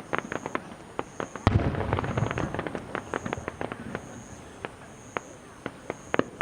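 Aerial fireworks: dense crackling from crackle-effect shells, with one loud boom of a shell bursting about one and a half seconds in, its rumble fading over a second or so, followed by sparser crackles.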